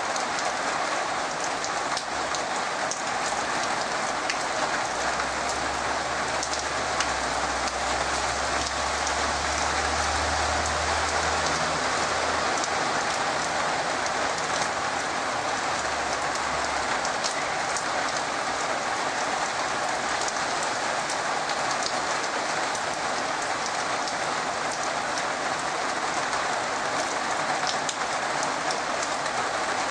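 Heavy rain pouring steadily onto trees and the yard, a dense hiss full of fine drop patter. A low rumble sits underneath for several seconds in the middle.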